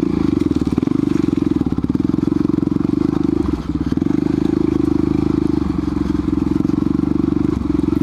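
Dirt bike engine running at a steady low throttle while the bike rides slowly over loose rocks and gravel, with a brief dip about halfway.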